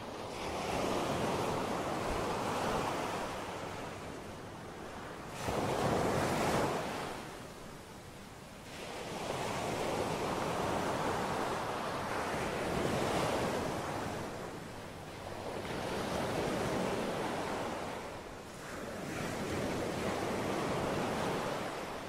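Black Sea surf breaking and washing up a sandy beach. The noise swells and fades every few seconds, with one sharper, louder surge about five and a half seconds in.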